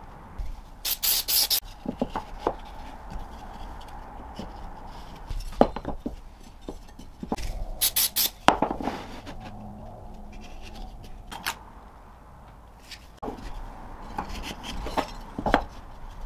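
Aerosol superglue activator sprayed in two short hisses, about a second in and again near eight seconds in. Sharp knocks and rubbing of wooden blocks being set down and pressed onto a board come between them.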